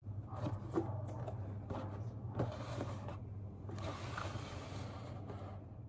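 Cardboard box being handled and turned on a wooden tabletop: light knocks and taps, with two longer scrapes around the middle.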